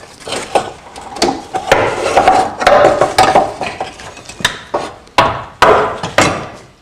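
A run of irregular metal knocks and clanks with some ringing and scraping as a Renault Megane II steering rack is worked loose and pulled out from under the car.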